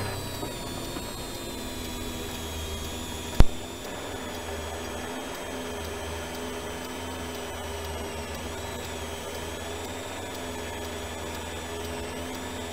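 A World Rally Car's turbocharged 1.6-litre four-cylinder, heard from inside the cockpit, running at low revs as the car rolls almost to a stop: a steady drone with high whining tones that waver near the end. One sharp click or knock sounds about three and a half seconds in.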